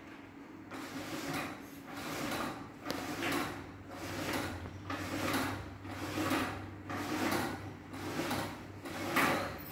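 Korean zebra roller blind being lowered by hand, pulled down in a rhythmic series of swishing strokes about once a second, each rising in pitch, over a steady low hum.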